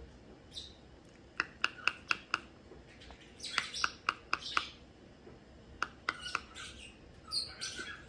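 Young rosy-faced lovebird giving short, sharp chirps in quick runs of several at a time, some of them scratchier chatter.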